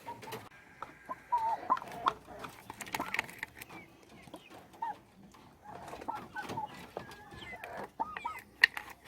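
Chickens clucking, short scattered calls, with a few sharp clicks in between.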